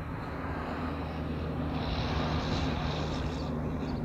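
Distant drone of the approaching 1938 NSW rail motor 402's twin GM 6-71 diesel engines, a steady low hum that grows slightly louder, with a rising hiss of wheel and rail noise from about halfway.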